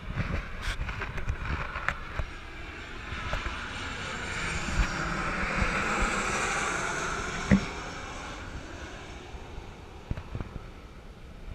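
Wind buffeting the microphone over water lapping at a small boat's hull, with a rushing swell of noise that builds and fades over the middle few seconds. There is a sharp knock about seven and a half seconds in.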